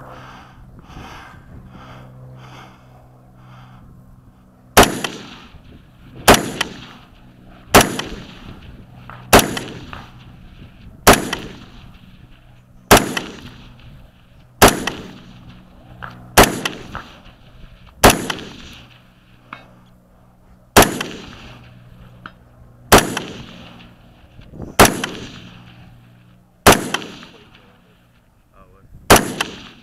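Custom AR-15 in .223 with a muzzle brake firing slow, aimed semi-automatic shots: about fourteen sharp reports roughly one every one and a half to two seconds, each with a short echoing tail, starting about five seconds in.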